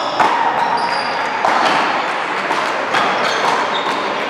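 A one-wall paddleball and handball rally: a ball smacked again and again off paddles and hands, the wall and the floor, in a run of sharp hits. Sneakers squeak briefly on the court floor between hits.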